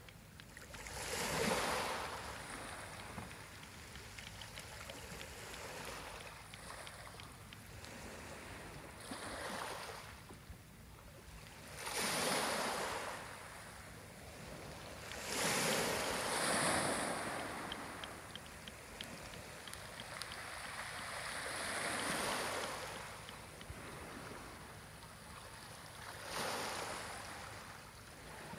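Small sea waves washing and lapping at the water's edge, each wash swelling and fading over a second or two, every few seconds, the strongest near the middle.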